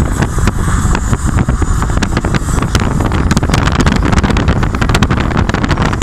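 Wind buffeting the microphone of a phone held out of a moving car: a loud, steady rush with rapid crackling.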